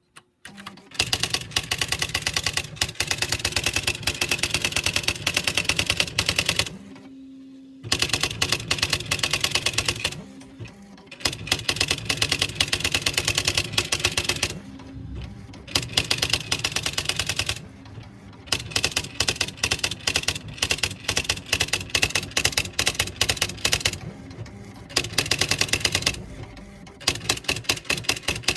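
Smith Corona SCM 5B-1 electric typewriter typing in rapid runs of keystrokes, each run lasting a few seconds. Its motor hums steadily in the short pauses between runs.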